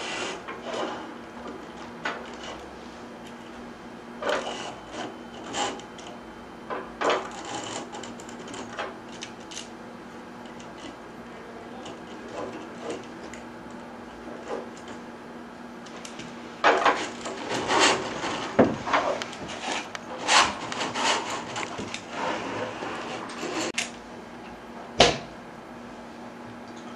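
Curtain track parts being handled and pulled: scattered clicks, knocks and rubbing scrapes, busiest about two-thirds of the way in, with one sharp knock near the end. A faint steady hum runs underneath.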